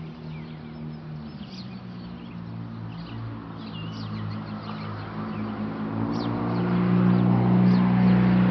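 Birds chirping, with short high calls scattered throughout, over a steady low engine hum of a vehicle that grows louder over the last few seconds.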